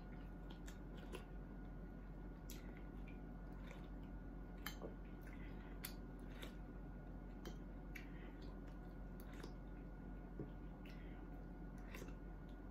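Metal spoon clicking and scraping on a ceramic plate in scattered, irregular taps while picking at fish, with soft chewing, over a steady low hum.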